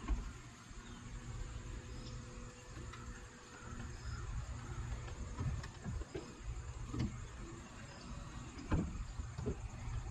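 C8 Corvette's power-retractable hardtop opening: the roof mechanism whirs steadily, with a thin steady tone that stops about six seconds in. Scattered clicks and knocks come as the panels move and latch, the clearest at the start and near the end.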